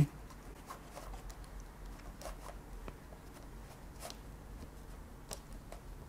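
Cherry MX switches being pushed into the keyboard's switch plate and its plastic snap-in mounting: scattered small plastic clicks and light handling rustle, irregularly spaced.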